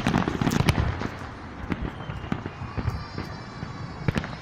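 Fireworks going off at close range: a rapid cluster of bangs in the first second, then scattered pops and crackling.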